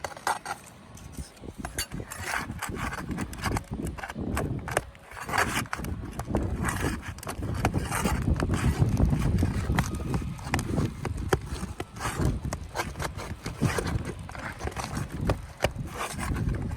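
Irregular knocks, taps and scrapes of hand tools working a damaged asphalt roof shingle loose to pull it out.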